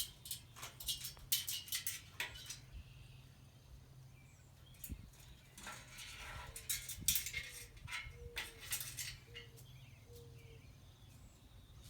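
Umbrella cockatoo's beak clicking and tapping on a small screwdriver, in two flurries of sharp clicks with a pause between, over a faint steady low hum.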